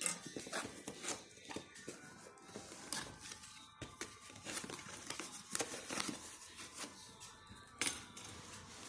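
Packaging being handled and opened: irregular crinkling and tearing with scattered sharp clicks and taps.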